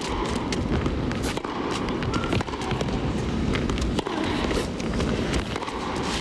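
Tennis rally: sharp racquet-on-ball strikes and players' footsteps on the court, coming at irregular intervals over a steady hiss of crowd and recording noise.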